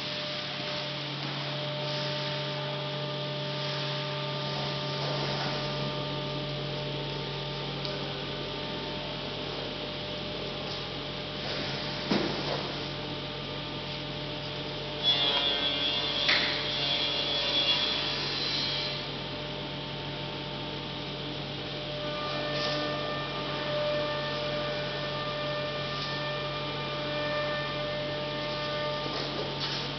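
A steady electrical hum, with a single knock and then, about halfway through, a louder few seconds of wooden clatter and scraping as the top panels are lifted off a convertible dining pool table.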